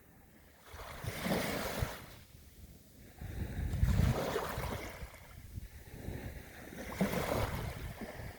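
Small waves breaking and washing up the shore, three swells a couple of seconds apart, each rising and fading away.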